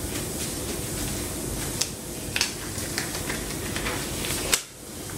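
Disposable gloves crinkling and snapping as they are pulled onto the hands: a few short, sharp crackles over a steady background hiss, the sharpest snap about four and a half seconds in.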